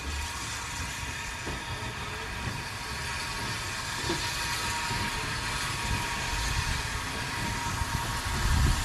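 Lancashire & Yorkshire Railway Class 21 'Pug' 0-4-0 saddle tank steam locomotive moving slowly at low speed: a steady hiss of steam over a low rumble, which swells near the end.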